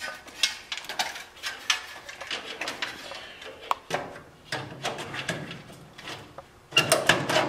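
Clicks, knocks and rattles of sheet-metal furnace parts and wiring being handled as the control board is fitted back into the cabinet, with a louder clatter near the end.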